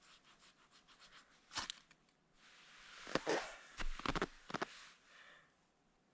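Handling and rustling noises: a run of faint clicks, a sharper knock, then a scraping rustle with several clicks and a low thump inside it.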